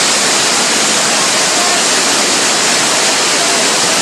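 Fast floodwater rushing in a steady, unbroken wash of noise.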